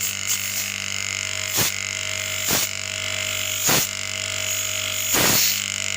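Refrigerator compressor running on test after its oil was cleaned out, with a steady hum and four sharp clacks at irregular intervals of about a second, the last one longer.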